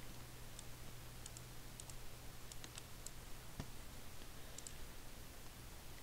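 Faint computer mouse clicks, scattered and some in quick pairs, over a faint steady low hum.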